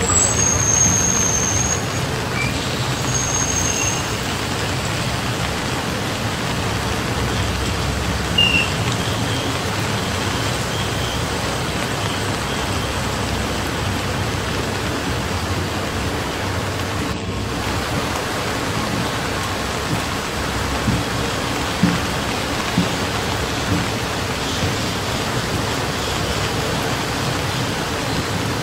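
Steady rain falling at a railway station: an even hiss with a low hum underneath. A few faint, short high chirps sound in the first few seconds.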